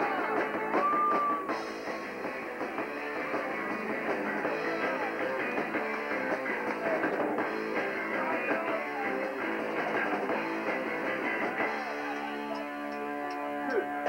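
Live rock band playing, with electric guitar and drums; about twelve seconds in the music settles into held chords.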